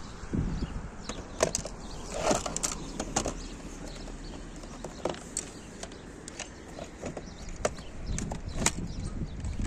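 Irregular sharp clicks and knocks of a plastic toy blaster being handled, its trigger and slide worked, with rustling and light thuds of the debris around it.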